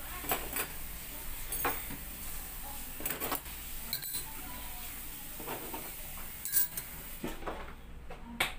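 Stainless steel spoons and forks clinking against ceramic bowls and tapping on a tabletop as they are set down: about ten separate clinks spread out, the sharpest near the end.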